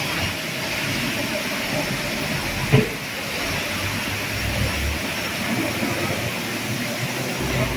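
Steady hiss of street traffic, with a low engine rumble passing about four to five seconds in and a single sharp knock a little under three seconds in.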